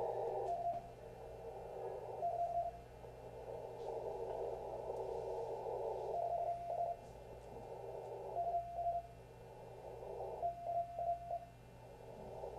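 Slow Morse code practice from W1AW, sent at about 5 words a minute and heard through a shortwave web SDR receiver. Single-pitch beeps, some longer and some shorter, come a second or more apart, with a quick run of three near the end, over a steady hiss of receiver noise.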